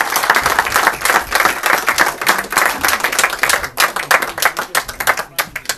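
Audience applauding loudly, the dense clapping thinning to a few scattered claps toward the end and then stopping.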